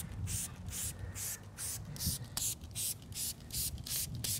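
Hand trigger spray bottle squirting waterless car wash onto a car door panel in quick repeated pumps, about four short hissing sprays a second.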